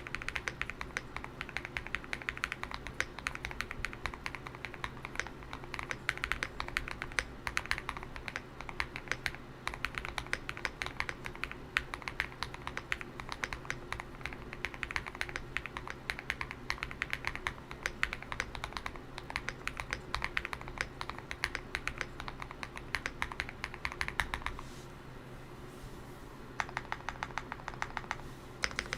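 Continuous typing on a GMK67 custom mechanical keyboard with lubed KTT Grapefruit linear switches and a tape-modded, foam-filled case: a fast, dense run of keystroke clacks. The typing pauses for about two seconds near the end, then resumes.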